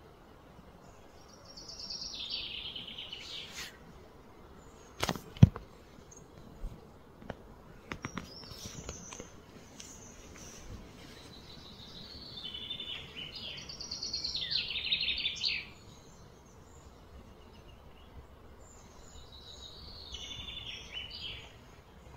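A small bird singing in three bursts of quick, high chirping phrases that fall in pitch, over steady outdoor background noise. A few sharp clicks come about five to nine seconds in, the loudest a single sharp knock about five seconds in.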